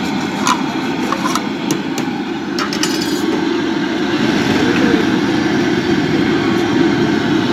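Steady street noise with several sharp clinks and knocks in the first three seconds, a few of them ringing briefly.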